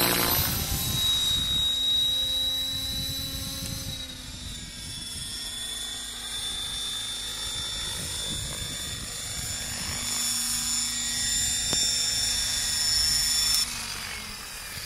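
Electric Compass 7HV 700-size RC helicopter with a Scorpion motor flying: a steady high motor whine over the swish of the rotor blades, loudest at the start as it passes close overhead. Near the end the whine cuts off abruptly as it comes down to land.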